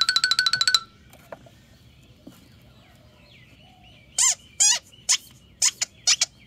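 Music cuts off under a second in. After a quiet stretch, a rubber duck toy is squeezed by hand, giving six or seven short, sharp squeaks in quick succession near the end, each bending in pitch.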